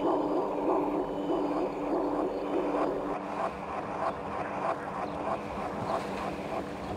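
Persistent mechanical hum carrying across the bay, steady with a faint regular pulsing and a slight drop in level about three seconds in.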